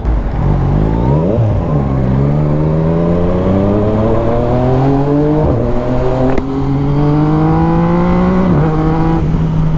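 2019 Yamaha MT-09's three-cylinder engine through an Akrapovic full carbon exhaust, pulling through the gears: a quick rev in the first second, then a steady climb in pitch broken by two upshifts, about halfway and near the end.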